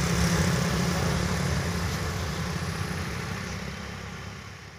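Road traffic on a hairpin bend: engines of cars, motorcycles and a loaded truck running as they climb and descend. A low engine hum is strongest in the first two seconds, and the whole sound fades away steadily toward the end.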